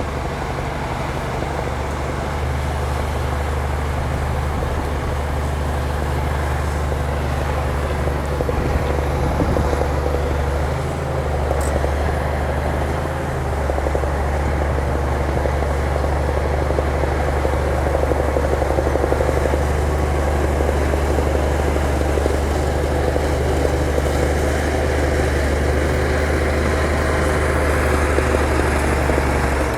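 Diesel engine of a heavy earthmoving machine running steadily: a deep, continuous drone that grows a little louder about a quarter of the way in.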